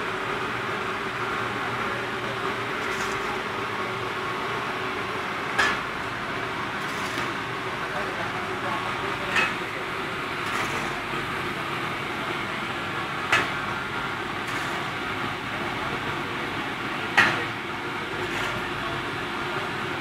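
Steady drone of steam boiler plant machinery, with a metal shovel striking and scraping the concrete floor four times, about every four seconds, as fuel briquettes are shoveled. The last strike is the loudest.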